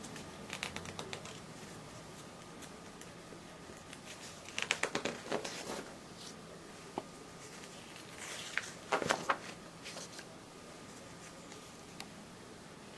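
Paper pages of a ring-binder catalogue being handled and turned, rustling and crackling in short bursts about a second in, around five seconds in and around nine seconds in.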